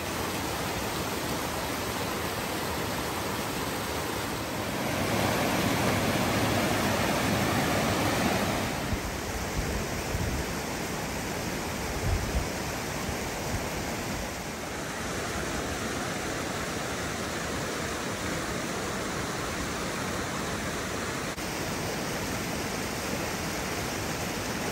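Fish Creek Falls, a waterfall, rushing in a steady hiss of falling water. It swells louder for a few seconds about a quarter of the way in, and there is a brief low thump about halfway through.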